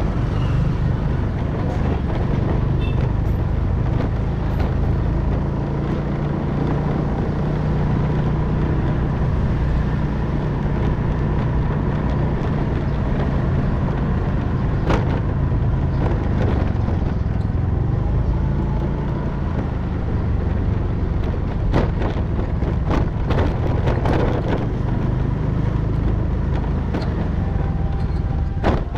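Motorcycle engine running steadily while riding, with a constant low rumble and a few sharp knocks in the second half.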